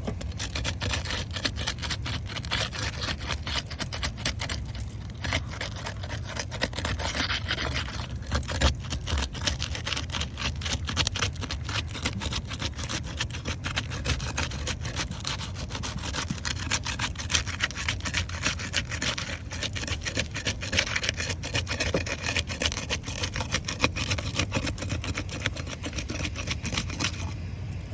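Roof shingles being pried up and unsealed from their sealant strip: a continuous dense scraping and crackling, brittle shingles rubbing and tearing.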